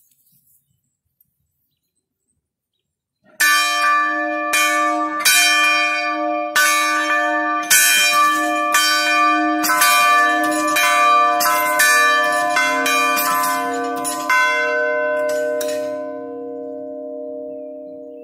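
Two large yoke-mounted tower bells swung by hand and rung together, a quick irregular run of clangs of about one to two a second starting about three seconds in. The two bells sound at slightly different pitches, and after the last strikes their ringing fades out.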